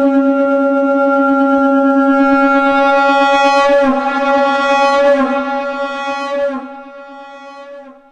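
Shankh (conch shell) blown as one long note pitched at C#, held steady, then wavering and turning brighter and rougher in the middle before it dies away near the end.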